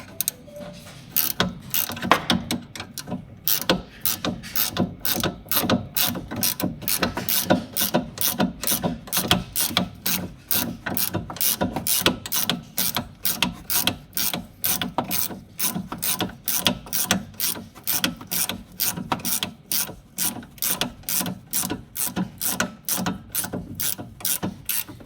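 Hand ratchet wrench clicking in steady, repeated strokes, about two to three clicks a second, as a nut or bolt is worked.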